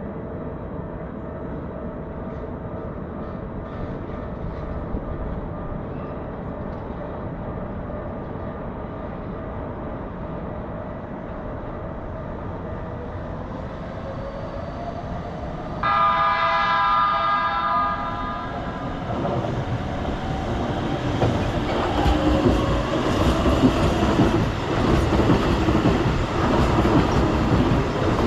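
Keikyu electric train sounding its horn, a blast of about two seconds, then running past with a growing rumble and rhythmic wheel clatter on the rails.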